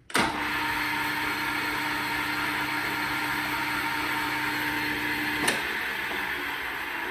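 Hembrug DR1-LS metalworking lathe starting up suddenly and running steadily with a hiss and a low hum. A sharp click comes about five and a half seconds in, the hum stops, and the running sound slowly fades.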